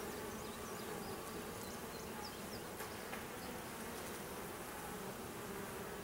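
Honey bees buzzing around an opened hive and a frame full of bees: a low, steady hum of many bees.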